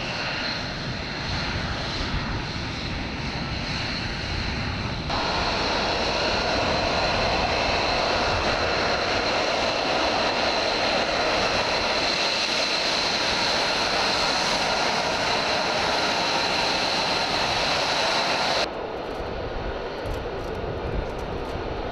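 F-35 Lightning II's single F135 turbofan engine running at taxi power: a steady jet rush with a high whine on top. It steps up abruptly about five seconds in and drops back near the end.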